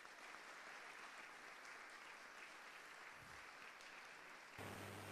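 Audience applauding, faint and steady. Near the end a low steady hum comes in.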